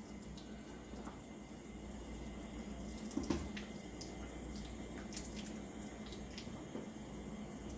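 Kitchen tap running steadily into a sink, with a few light clicks from small scissors snipping fat off a dressed quail.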